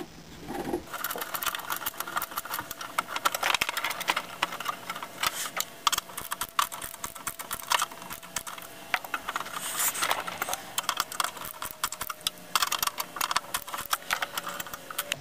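Flathead screwdriver turning a screw out of the underside of an IBM 5251 keyboard: a dense run of small clicks and scrapes as the blade works in the screw slot.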